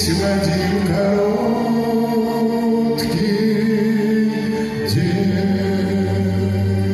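Slow ballad music in an instrumental passage: sustained, held chords, with two short sharp hits about three and five seconds in.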